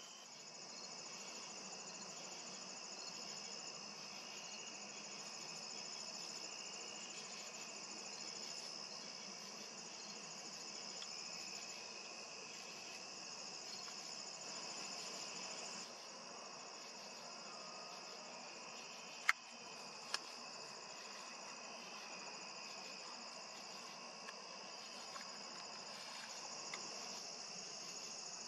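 Chorus of insects, crickets among them, chirring steadily in several overlapping high-pitched layers. Two sharp clicks stand out about two-thirds of the way through, followed by a few fainter ones.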